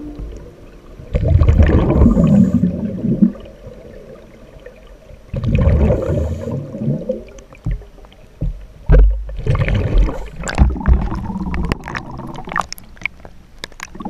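Sea water splashing and washing at the surface in irregular bursts as small waves wash over, with a busier run of sharp splashes in the last five seconds.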